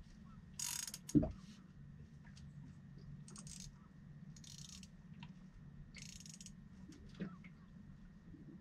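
Fishing reel being worked by hand: about four short bursts of whirring gear and ratchet, with scattered small clicks, over a low steady hum.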